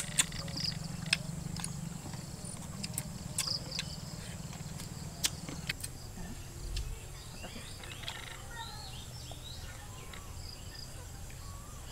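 Forest ambience: scattered bird chirps and a faint steady high insect drone, with a few sharp clicks in the first half.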